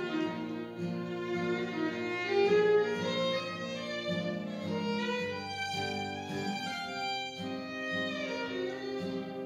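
Fiddle playing a Celtic-style waltz melody in long bowed notes, over steel-string acoustic guitar accompaniment.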